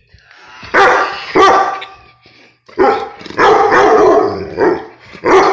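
Pit bull barking loudly in bursts: two sharp barks about a second in, a longer run of barking from about three seconds, and one more bark near the end.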